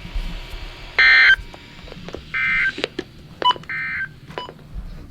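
Emergency Alert System end-of-message signal on NOAA Weather Radio: three short bursts of shrill digital data tones, about a second and a half apart, marking the end of the warning message.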